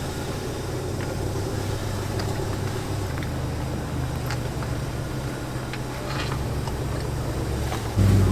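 Car engine running with a steady low hum, likely heard while driving. The hum gets suddenly louder just before the end.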